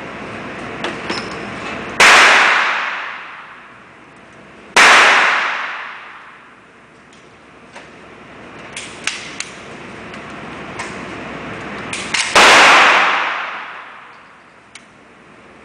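Heckler & Koch MP5 submachine gun fired three times, a loud report at each (about 2 s, 5 s and 12 s in), each echoing away over about two seconds. Fainter sharp cracks sound in between.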